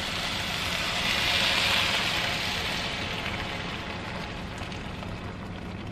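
Broth poured into a hot frying pan of toasted rice and vegetables, hissing and sizzling as it hits the pan. The hiss swells to its loudest about a second and a half in, then slowly dies down to a quieter simmer.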